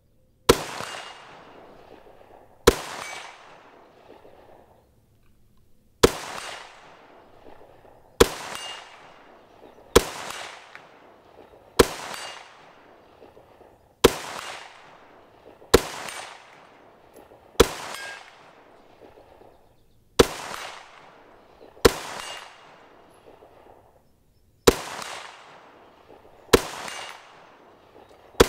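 Robinson Armament XCR-L rifle fired in slow, aimed single shots, about thirteen sharp cracks roughly two seconds apart. Each crack is followed by a decaying echo.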